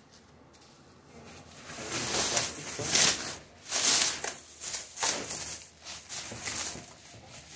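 Washing-machine packaging being handled: a run of rustling, scraping strokes, roughly one a second, starting about two seconds in.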